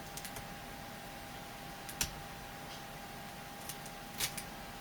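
Light clicks and taps of hands working a laptop LCD panel's 40-pin LVDS cable connector loose: a few soft clicks at the start, a sharper click about two seconds in, and a small cluster near the end, over a faint steady tone.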